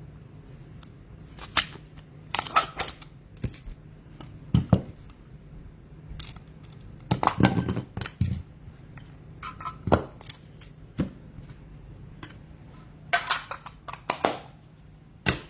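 Trading card packs and cards being handled on a table: irregular sharp clicks and taps with brief rustles as packs are opened and cards are slid and set down, over a faint steady low hum.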